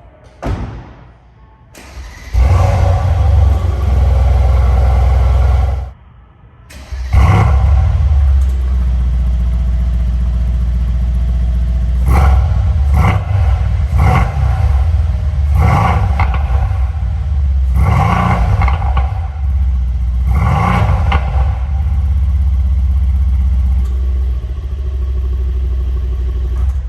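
Mercedes-AMG C 63 S 4.0-litre twin-turbo V8 being started and revved in repeated short blips, its exhaust popping and crackling between revs. The sound drops out briefly about six seconds in, then picks up again.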